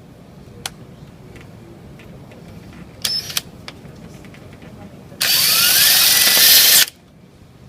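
Power drill driving screws: a short burst about three seconds in, then a longer run of about a second and a half with a rising motor whine, starting near five seconds. Faint clicks and handling noises in between.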